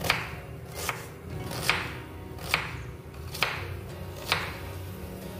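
A knife chopping onions, slow even strokes at about one a second.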